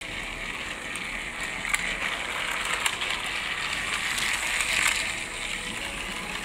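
Fisher-Price TrackMaster Hurricane motorized toy engine running along plastic track, its small motor and gears whirring with a rattle, two sharp clicks in the first half and a brief swell in loudness near the end.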